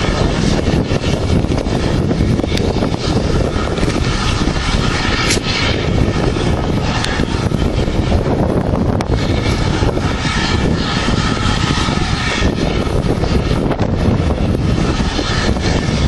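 Wind buffeting the camera's microphone: a loud, steady rumbling roar that covers the quieter sounds of the yard.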